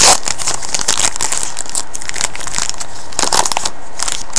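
Hockey card pack wrapper crinkling and tearing as gloved hands rip it open, in quick crackly bursts with a louder flurry at the start and another about three seconds in.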